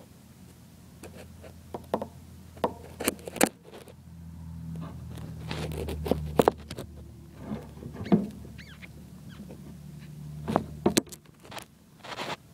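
Irregular clicks, taps and rustles in a terrarium of dry leaf litter, with a low hum underneath that swells about four seconds in and fades after about seven.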